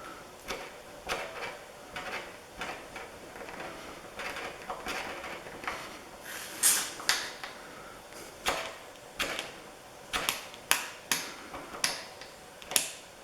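A tool scraping paint off a painted-over grease fitting on a tractor backhoe, in short irregular strokes. The strokes turn into sharper, louder clicks and scrapes in the second half.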